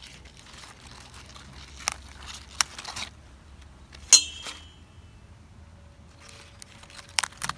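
Scattered soft knocks and rustles of lettuce leaves being picked by hand into a stainless steel bowl, with one sharp metallic clink from the bowl about four seconds in that rings on briefly.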